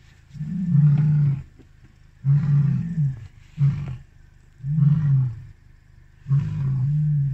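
Male lion roaring: five deep calls with short gaps, the first two about a second long, then a short one and two more, one brother calling to the other.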